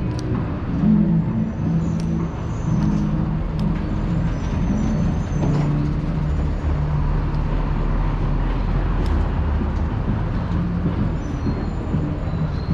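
Urban street traffic: the steady low running of car and bus engines.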